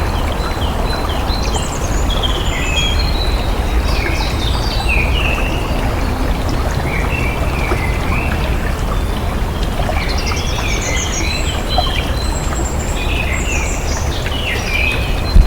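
Flowing water running steadily, with songbirds singing over it in short, repeated chirping and warbling phrases. A single sharp click at the very end.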